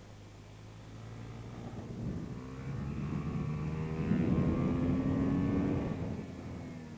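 Motorcycle engine, heard from on board the bike, revving up as it accelerates out of a corner, its pitch climbing slowly and loudest about four to six seconds in before easing off, with wind rushing past.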